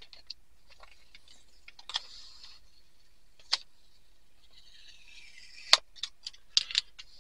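Fingers picking at and peeling a sticker seal off a small cardboard box: faint scratching and rustling with a scatter of sharp clicks and taps, the loudest a single sharp click about three-quarters of the way through, followed by a quick cluster of clicks.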